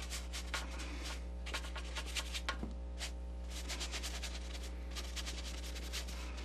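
Paintbrush scrubbing and dabbing paint onto a canvas in short, irregular scratchy strokes, over a steady low electrical hum.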